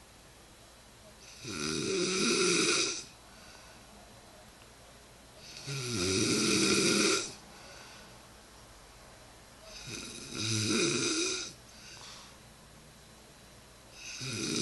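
A woman snoring in her sleep: three long snores about four seconds apart, with a fourth starting near the end.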